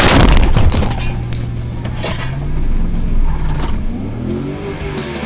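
Vehicle collision heard from a dashcam inside the car: a loud bang of impact, followed by about a second of crunching and clattering.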